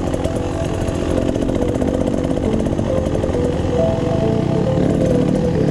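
2019 Beta Xtrainer two-stroke dirt bike engine running under way, its pitch stepping up and down with the throttle.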